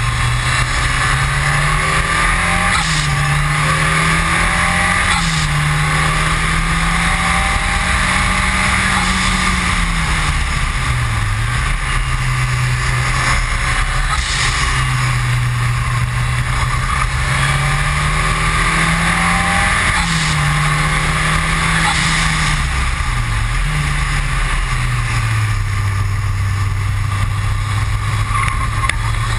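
Ford Escort RS Cosworth's turbocharged 2.0-litre four-cylinder pulling hard on track. The engine note rises through each gear and drops sharply at the upshifts, with a few deeper dips under braking, over steady road and wind noise.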